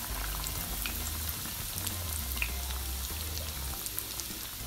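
Vermicelli-coated chicken kebabs shallow-frying in hot oil in a frying pan: a steady sizzle with scattered small pops and crackles.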